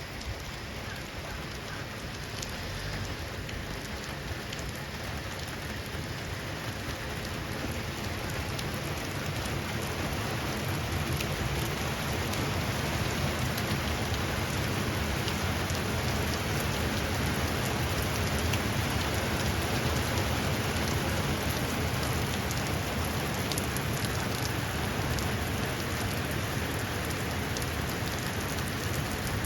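Steady rain falling, a continuous patter that grows gradually louder over the first ten seconds or so.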